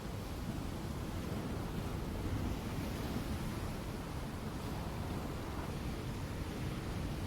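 Ocean surf as a continuous, even wash of noise, heaviest in the low end, with no separate wave crashes standing out.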